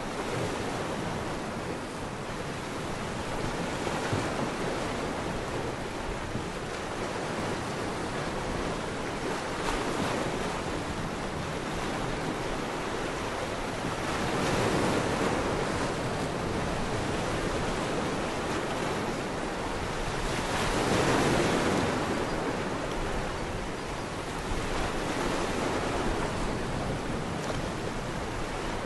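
Rushing noise of surf, swelling and ebbing about every five to six seconds.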